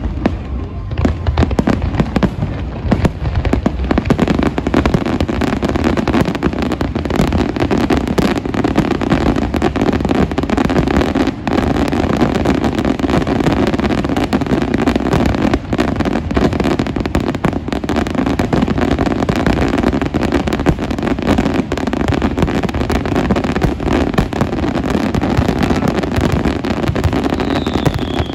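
Fireworks going off in a dense, continuous barrage of bangs and crackles, with a short falling whistle near the end.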